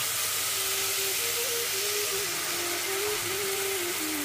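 Boiled black chickpeas and their cooking water sizzling hard in hot oil tempered with cumin and coriander in a steel pot: a loud, steady hiss of steam as the liquid hits the hot oil.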